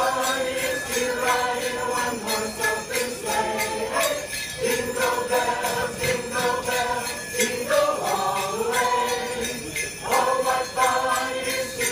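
A choir sings held notes of a Christmas song with no clearly sung words, over jingle bells shaken in a steady beat.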